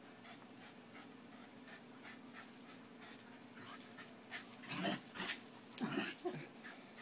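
Two puppies at play, giving a few short dog vocalisations about five to six seconds in, over a faint steady hum.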